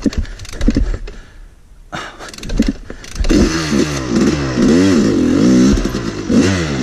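Dirt bike engine, a two-stroke Yamaha YZ250, running loud from about three seconds in, its revs rising and falling in repeated throttle blips. Before that, a few scattered knocks and bumps.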